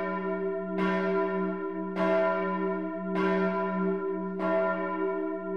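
A single church bell tolling at a steady pace, struck about once a second, each stroke ringing on into the next.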